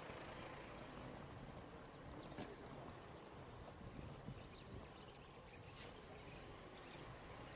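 Insects giving a steady high-pitched drone over faint background noise, with a couple of faint clicks.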